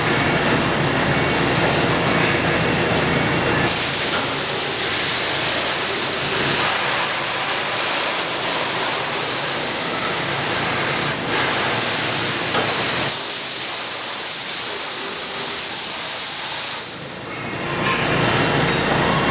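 Machinery running steadily, overlaid by long bursts of hissing air that start about four seconds in and stop with a drop in level near the end.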